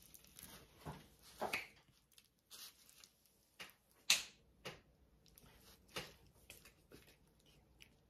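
Loose bird seed rustling and crunching as a peanut-butter-coated pine cone is pressed and rolled in a plate of seed: a series of short scratchy rustles, the loudest about four seconds in.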